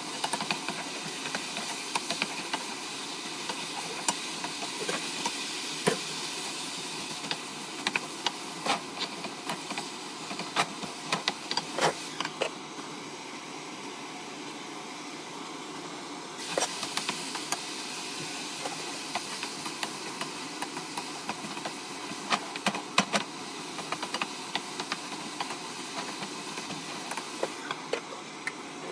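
Sauce frying in a non-stick wok: a steady sizzle with many sharp pops and ticks, and a wooden spatula stirring against the pan. Partway through, the wok is covered with a metal lid and the sizzle carries on under it, softer for a few seconds, then with scattered pops.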